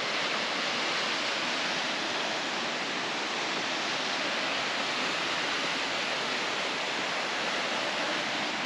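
Waterfall at Kaaterskill Falls: a steady, even rush of falling water.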